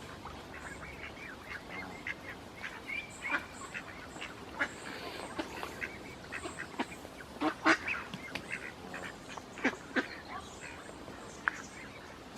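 Geese and other waterfowl calling at a pool: short, scattered calls, a few louder ones about halfway through.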